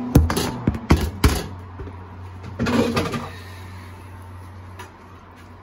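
Sharp knocks of a utensil against a stainless steel pot, three in the first second and a half, then a longer scraping rustle about halfway through as raw rice is stirred into the masala. A steady low hum runs underneath.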